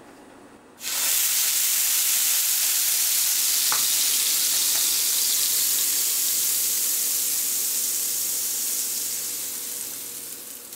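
Butter and hotcake batter sizzling on a hot nonstick griddle. The sizzle starts suddenly about a second in and fades slowly toward the end.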